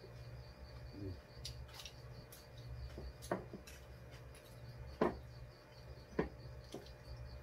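Chopsticks and spoons clicking against ceramic rice bowls as two people eat, a few sharp separate clicks with the loudest about five seconds in, over a steady low hum and a faint repeating high chirp.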